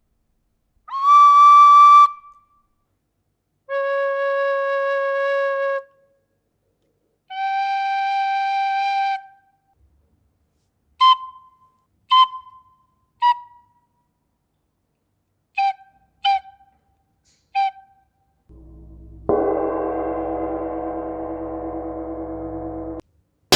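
Whistle-like tones: three held notes of about a second or two each at different pitches (high, low, middle), then six short toots in two groups of three, then a longer, buzzier tone. A bright crash comes right at the end.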